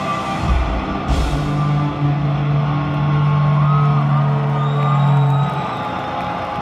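Live stoner rock band playing: distorted electric guitars, bass and drums, loud. Heavy thumps and a crash come about a second in, then a long held low chord until about five and a half seconds in.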